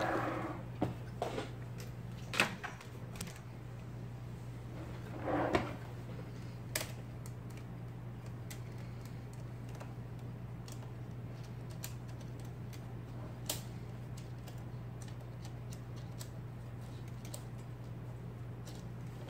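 IBM Selectric ball typewriter with its motor humming steadily, over single clicks and clunks from its mechanism. A few heavier clunks come in the first six seconds, then scattered light clicks, with no run of rapid typing.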